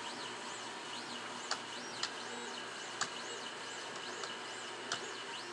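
A few sharp, scattered computer keyboard key taps as a short search term is typed, over a steady faint hiss. Behind them a faint high-pitched whine rises and falls about twice a second.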